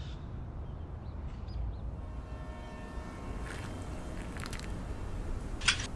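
Pump-action airpot flask dispensing tea, with short hissing spurts about three and a half and four and a half seconds in, over a steady low outdoor rumble. A brief, sharper sound comes near the end.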